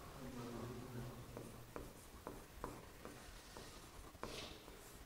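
Pen writing on a board: faint light ticks and scratches as the tip strikes and strokes the surface, coming every half second or so from about a second in, after a faint low hum at the start.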